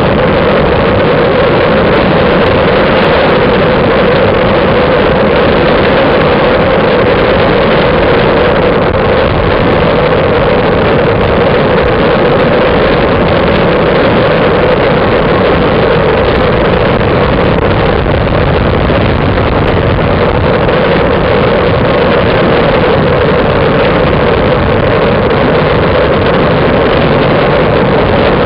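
Loud, steady wind rush and tyre-on-asphalt road noise picked up by a bicycle-mounted camera's microphone while riding at speed in a group of road cyclists.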